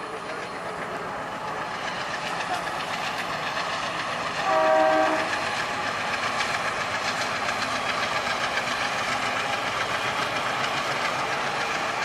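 WDM3A diesel locomotive hauling passenger coaches, running past and growing steadily louder as it approaches, with a short horn blast about four and a half seconds in. Wheels click over the rail joints as the coaches roll by.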